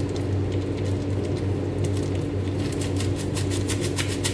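A paper sachet of powdered vanilla crinkling and being tapped out over a mixing bowl, with rapid soft ticks that thicken in the second half. A steady low hum runs underneath.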